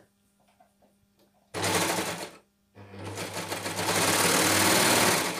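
Overlocker (serger) stitching the short seam of a jersey neckband. It runs in a short burst about a second and a half in, pauses briefly, then starts again, grows louder and runs steadily before stopping near the end.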